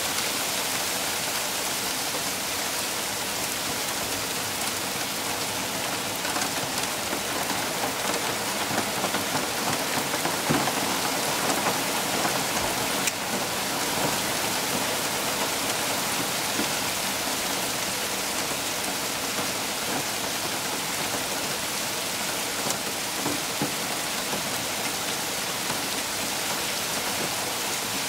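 Small hailstones falling steadily onto garden soil and leaves: a dense, even hiss of many tiny impacts. It grows a little louder, with scattered sharper ticks, between about 7 and 13 seconds in.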